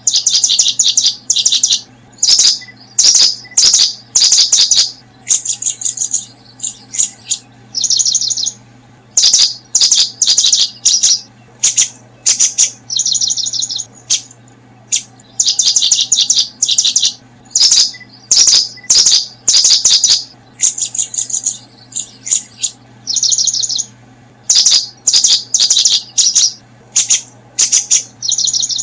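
Small songbird chirping: loud, high-pitched bursts of rapid chirps, each under a second long, repeated with short gaps. A faint steady low hum lies underneath.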